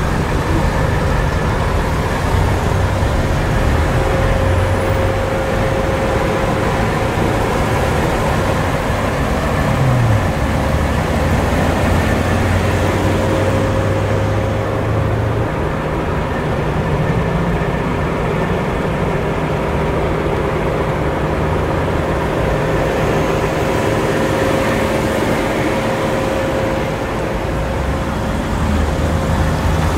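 Steady vehicle noise of a car running, with a constant hum and a low rumble that rises briefly about ten seconds in.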